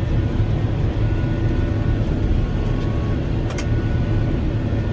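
John Deere 6145M tractor running steadily, a low drone heard from inside the cab while it pulls a large square baler. A brief click comes about three and a half seconds in.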